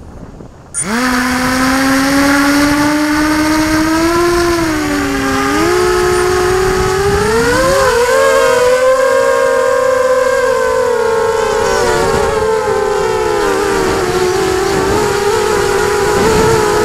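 Small camera drone's electric motors and propellers spinning up suddenly about a second in. The whine climbs in pitch as the drone lifts off and rises over the first eight seconds or so, then holds roughly steady as it flies. It is heard close up on the drone's own microphone.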